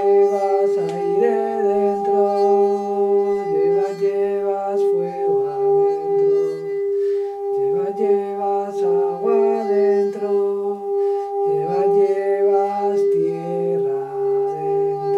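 A hand-held singing bowl rings a steady, sustained tone throughout. Beneath it a low voice hums or chants slow notes that slide and step in pitch.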